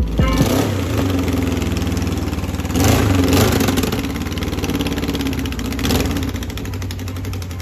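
Car engine running, revved up briefly three times, about a third of a second, three seconds and six seconds in.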